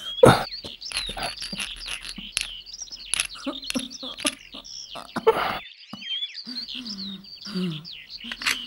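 Small birds chirping and twittering, with a scatter of sharp knocks, the loudest just after the start.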